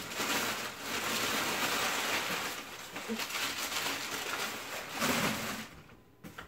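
Crumpled brown kraft packing paper crinkling and rustling as it is pulled out of a cardboard shipping box, dying away near the end.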